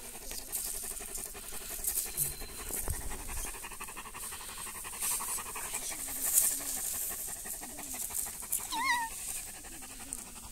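A large dog panting steadily close by, with a short high wavering call near the end.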